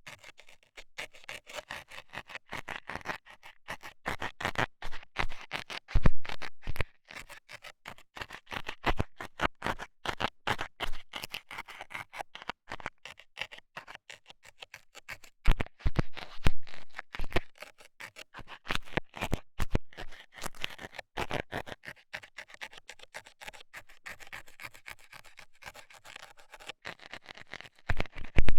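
A metal scaler scraping and jabbing in an ear, close-miked: a dense, irregular run of scratches and clicks, with a few louder knocks about six seconds in, around the middle and near the end.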